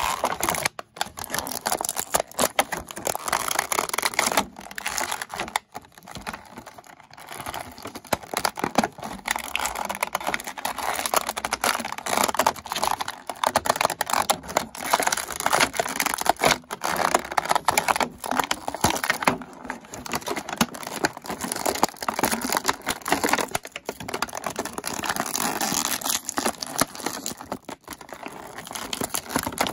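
Clear plastic packaging bag crinkling and rustling as hands work an action figure out of it, a dense, irregular crackle with brief pauses.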